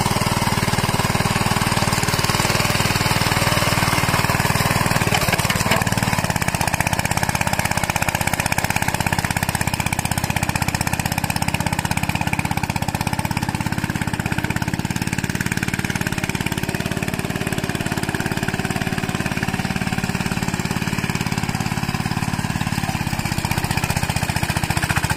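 Single-cylinder diesel engine of a two-wheel hand tractor (traktor capung) running steadily with a rapid knocking beat while pulling a moldboard plough through weedy ground.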